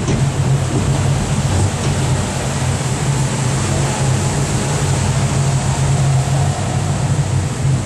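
Sightseeing train running steadily, with a constant low engine hum and the noise of its travel, heard while riding on board.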